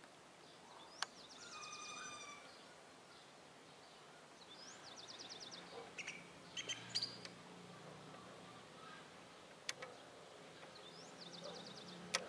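Small songbirds chirping, with a few short rapid trills, over faint steady background noise. Three sharp clicks stand out, about a second in, near ten seconds and near the end.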